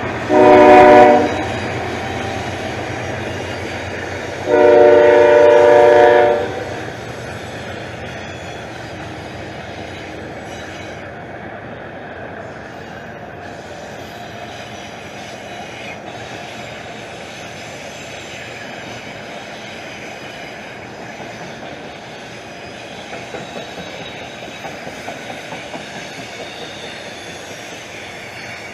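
CSX freight locomotive horn sounding a short blast and then a longer one, a chord of several tones, followed by the steady rumble and wheel clatter of the freight train rolling past, slowly easing off.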